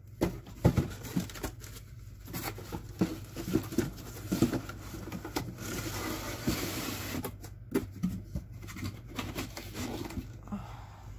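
Packing handled by hand: cardboard boxes being moved and plastic packaging bags rustling, with scattered knocks and scrapes.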